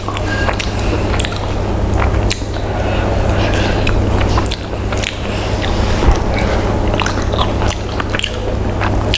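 Close-up chewing and biting of fried chicken, with many short wet clicks and crackles from the mouth, over a steady low hum.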